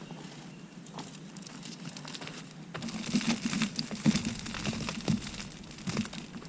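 Plastic mulch bag crinkling and rustling with scattered light knocks, starting about three seconds in and lasting about three seconds, while mulch is handled. A steady low hum runs underneath.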